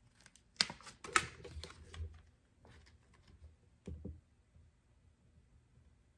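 Hand-handling noises of clear contact transfer paper and vinyl decal pieces: a couple of sharp crinkly clicks with rustling in the first two seconds, a soft knock about four seconds in, then only faint room tone as the vinyl is pressed onto the tumbler by hand.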